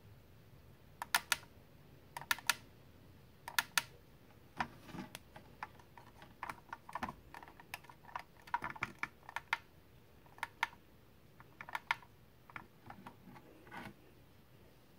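Small push-button switch on a 1:24 scale police car model clicking as it is pressed and released to change the flashing light patterns. Three click pairs come in the first four seconds, then a run of quicker, irregular clicks.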